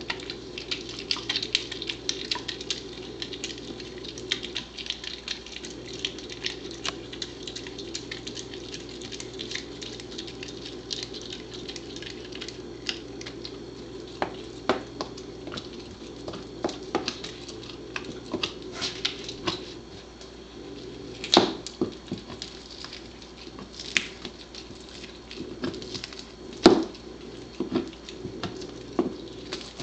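A Pembroke Welsh Corgi chewing and ripping meat off a raw buffalo rib bone: irregular crunching and clicking, with several louder snaps in the second half.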